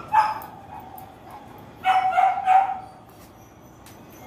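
A dog barking: one bark at the start, then three quick barks about two seconds in.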